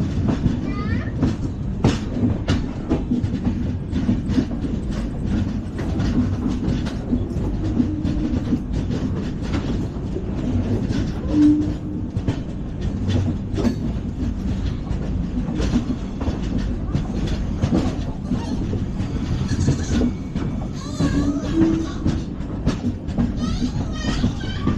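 LHB passenger coaches running at speed on the track: a steady low rumble of wheels on rail, with frequent sharp clatter as the wheels cross rail joints.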